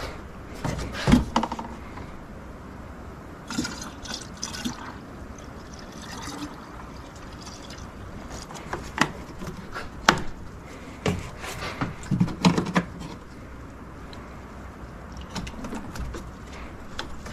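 Engine coolant being poured into a car's radiator, liquid filling and gurgling, with several sharp knocks and clicks from handling, the loudest about a second in and again about ten seconds in.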